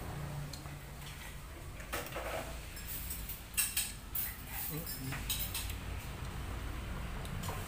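Metal spoon clinking and scraping against ceramic plates during a meal, several short sharp clinks between about two and five and a half seconds in, over a low steady hum.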